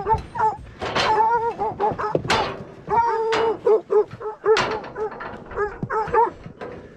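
Dogs barking repeatedly in short, pitched barks, two or three a second, with a few sharp knocks in between.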